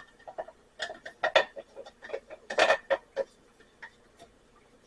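Spoon and coffee mug clinking and knocking together: a quick, irregular run of light clicks over about three seconds, then a couple of faint ticks.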